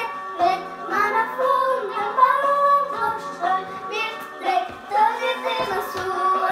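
A children's song with a child's voice singing a melody over instrumental backing music.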